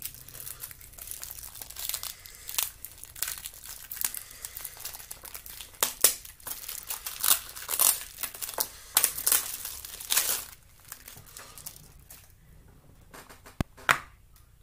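Plastic shrink wrap being torn and peeled off a Blu-ray case, crinkling and crackling in quick irregular bursts, then quieter handling with a couple of sharp clicks near the end.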